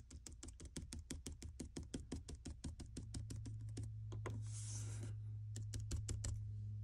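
Stiff paintbrush dabbing and stabbing acrylic paint through a card stencil onto a plaster road surface: rapid light taps, several a second, growing fainter about halfway through as a low steady hum comes in.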